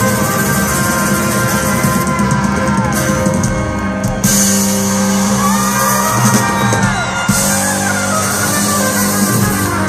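Live rock band playing, with electric and acoustic guitars and drums over the PA, and the crowd shouting and whooping along.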